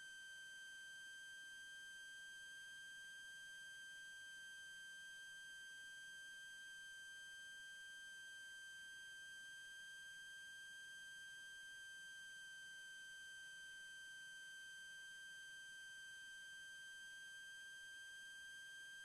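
Near silence in the cockpit's headset and intercom audio, except for a faint, steady, high-pitched electronic whine that does not change.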